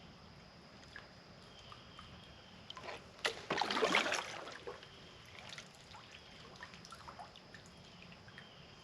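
Water splashing and sloshing against a kayak in one burst that starts about three seconds in and lasts a little over a second, amid faint small knocks.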